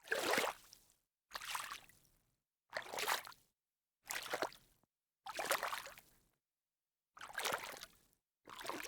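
A sneaker splashing down in shallow water, heard as a series of separate Foley takes: seven wet steps roughly every second and a half, each a splash that fades within a second, with dead silence between them.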